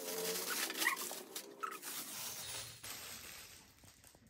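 Gift packaging crinkling and rustling as a wrapped packet is handled and opened. There are faint pitched sounds in the first two seconds, and it grows quieter near the end.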